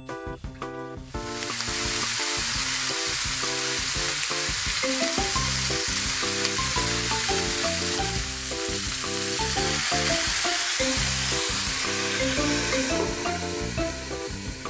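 Pork belly rolls wrapped around mizuna sizzling in a hot frying pan: a steady fat-and-meat sizzle that starts about a second in and softens slightly near the end. Background music plays throughout.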